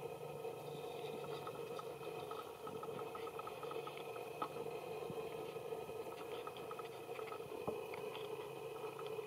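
Faint, steady outdoor background hum with a few soft scattered ticks and rustles, as of dry leaves being stirred.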